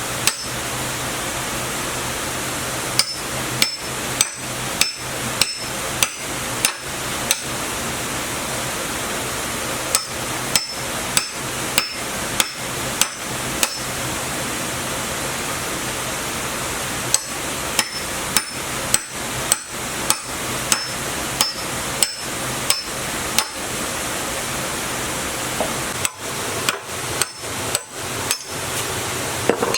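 Hammer blows on metal in steady runs of about two strikes a second, each with a short metallic ring, broken by pauses of a few seconds, over a steady hiss.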